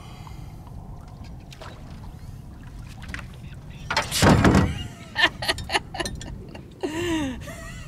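A man's loud cheering shout about four seconds in, followed by a quick run of short sharp sounds and a cry that rises and falls in pitch, over steady wind and water noise on an open boat.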